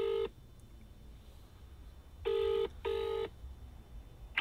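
Ringback tone of an outgoing call through a smartphone's speaker, in the British double-ring cadence: one buzz ends just after the start, then about two seconds later two short buzzes close together. A brief sharp sound comes right at the end, as the call connects.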